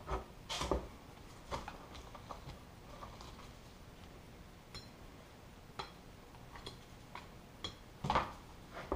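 Scattered light taps, clicks and scrapes of a plastic card and gloved hands working thick epoxy filler on a metal motorcycle side panel on a workbench, with a louder knock about half a second in and another near the end.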